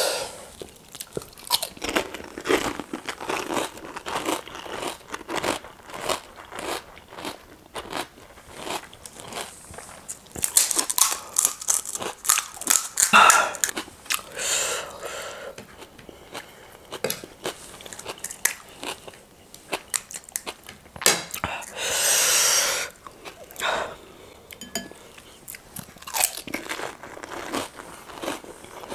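Close-up eating sounds of panipuri: crisp puri shells crunching between the teeth, then wet chewing of the filled shells. A longer slurp of the spiced water comes about two-thirds of the way in.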